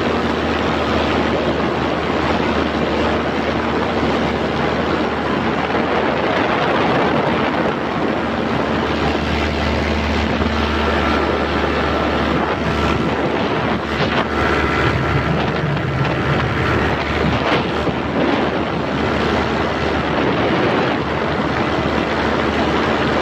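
Miniplane Top 80 single-cylinder two-stroke paramotor engine running steadily under power in flight, with wind noise on the microphone.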